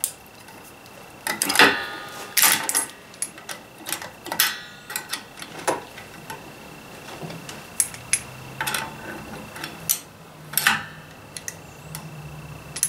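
Metal clinks, taps and rattles of locking pliers against the steel springs, shoes and backing plate of a Ford 2N drum brake being fitted. About a dozen sharp knocks come scattered through, some ringing briefly.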